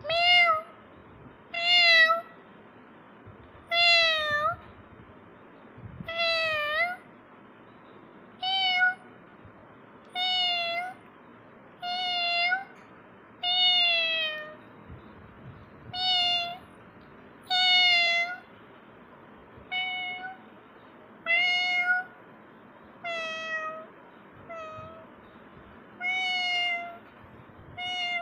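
Domestic cat meowing over and over: about sixteen short meows at an even pace, one every one and a half to two seconds.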